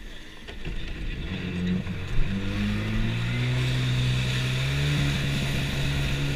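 Stand-up jet ski engine revving up as the ski pulls away, rising in pitch over the first few seconds, then running steadily at speed.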